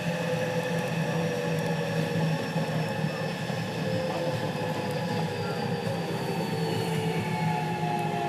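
JR West 207 series EMU's Toshiba GTO inverter, heard inside the car, with several whining tones gliding steadily downward as the train slows for the station. One of this car's two inverters is out of step in its modulation sound, so its tones harmonise with the normal unit's into an unusual doubled whine.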